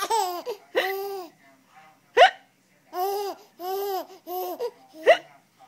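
A 3-month-old baby laughing in short, high-pitched bursts. A woman hiccups twice, sharply and briefly, about two and five seconds in, the loudest sounds here.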